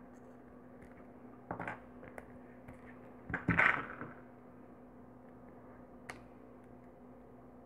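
Small handling noises of hand beadwork, needle and nylon thread worked through pearl beads: a few soft rustles and clicks, the loudest a bit past three seconds, over a steady low hum.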